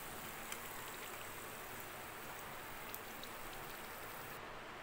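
Hot oil in a kadai sizzling steadily around freshly fried mung dal badis as they are lifted out with a slotted steel spoon, with a few faint pops and clicks. The higher part of the hiss drops away near the end.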